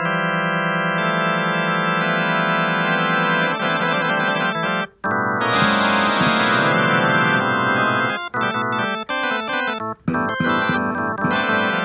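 Music with held, organ-like chords that change every second or so. It cuts out abruptly about five seconds in and comes back fuller, with two more short breaks near the end.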